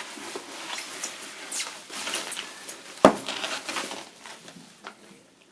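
Packaging being pulled open and unwrapped by hand, with irregular rustling and crinkling, and one sharp knock about three seconds in.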